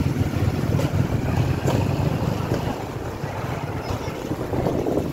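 Street noise with a low rumble from motorcycles passing close by, and wind buffeting the phone's microphone.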